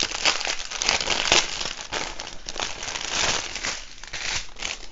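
Clear plastic packaging crinkling as a bundle of diamond-painting drill bags is handled: a dense, irregular crackle that thins out near the end.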